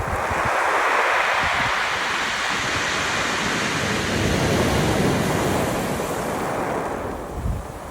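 Sea waves washing up a beach of round pebbles and draining back through the stones: one surge swells at the start and eases off near the end. Wind rumbles on the microphone underneath.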